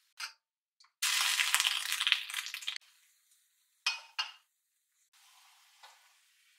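Kitchen sounds at a glass pot of water on a cooktop: a loud hissing rush lasting about two seconds, then two sharp clinks against glass, and faint stirring of the water near the end.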